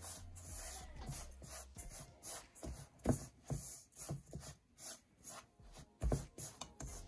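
Silicone spatula stirring a dry chickpea-flour mixture in a stainless steel bowl: irregular scraping and brushing strokes against the flour and the metal.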